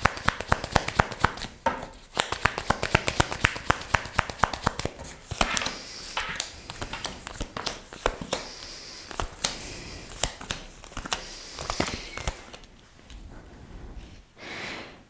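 A deck of tarot cards being shuffled by hand: a fast, crisp run of card clicks and riffles, growing sparser and quieter near the end.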